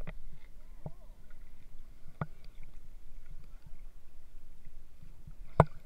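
Water sloshing against a camera floating at the surface: a low, steady rumbling wash broken by four sharp knocks, the loudest about five and a half seconds in.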